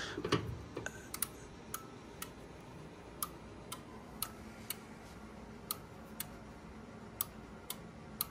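Sharp clicking from the gas furnace's electrical controls, a click about every half second with a few gaps, over a faint steady hum: a "snap, crackle, pop" in the live furnace.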